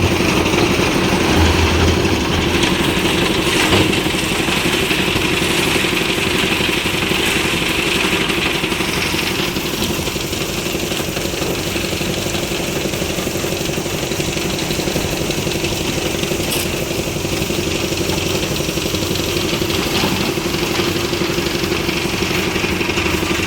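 Engine of a concrete mixer lift machine running steadily on a slab pour, with a constant hum.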